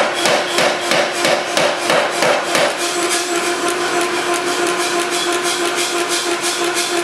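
3B Nazel forging hammer's ram pounding a hot stainless steel billet, about three to four heavy blows a second. After nearly three seconds the heavy blows stop and the hammer runs on with a steady machine hum and a lighter rhythmic knocking.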